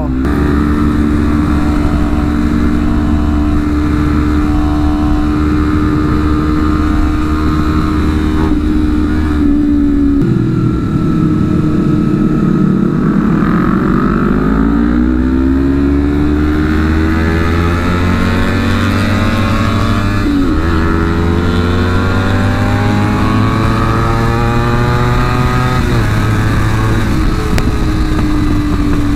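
Honda CBR250RR parallel-twin engine heard from the rider's seat while riding. It holds a steady note for about ten seconds, then the revs climb with a rising pitch, with a brief break about twenty seconds in and the note dropping again near the end.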